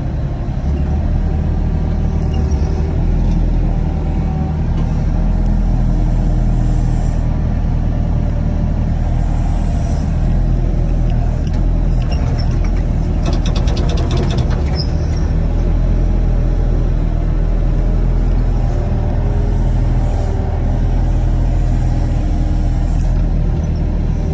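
Mini excavator's diesel engine running steadily as it digs, with a short run of rapid knocks about halfway through.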